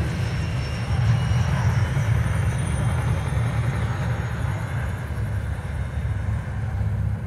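A deep, steady rumbling drone from the show's soundtrack, played over large outdoor loudspeakers.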